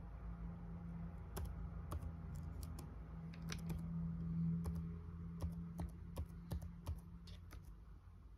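Computer keyboard being typed on slowly, a dozen or so separate key clicks at uneven spacing, over a steady low hum.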